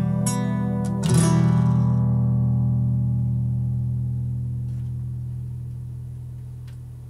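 Nylon-string acoustic guitar: a closing chord strummed about a second in and left ringing, slowly fading away.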